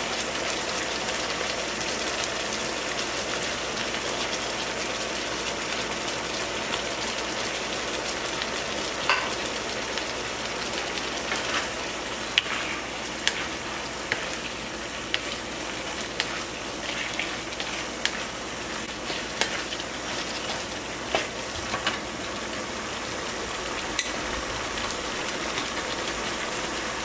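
Diced chicken sizzling in a nonstick frying pan, a steady hiss of frying in sweet soy sauce, while a wooden spatula stirs it with scattered scrapes and taps against the pan.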